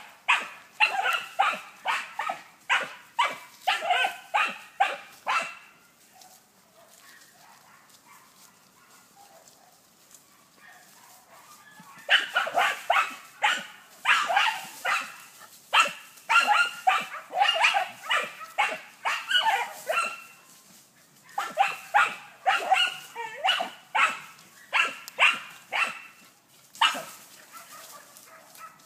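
A German hunting terrier (Deutscher Jagdterrier) bay-barking at a wild boar that it holds at bay: rapid, repeated barks, about two to three a second, in long runs, with a break of about six seconds after the first five seconds.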